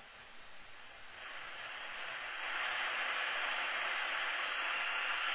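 Eton Traveler III shortwave radio hissing with static on a memory preset where no station comes through. The hiss fades in about a second in, grows louder, and holds steady from about two and a half seconds.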